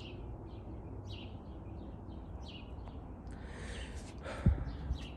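A small bird chirping repeatedly, short high chirps about twice a second. A rustle comes about three seconds in, and a sharp knock about four and a half seconds in.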